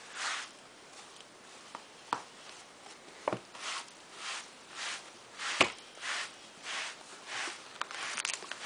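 Hand rubbing a cat's fur in quick, even strokes: a soft brushing hiss repeated about every half second, with a few sharp clicks and knocks as the cat grabs at the hand.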